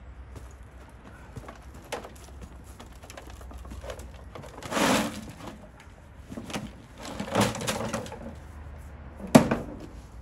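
Spade and wheelbarrow digging: the scrape and crunch of a blade in soil and road-chipping gravel, in separate bursts, with one sharp knock about nine seconds in.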